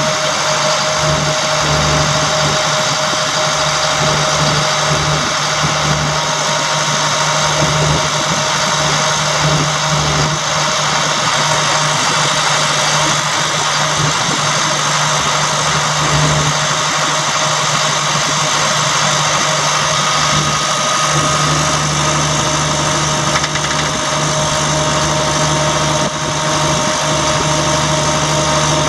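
Caterpillar 3126 six-cylinder diesel engine of a service truck running at a steady idle, with a constant whine over it, while the truck's crane boom is being moved.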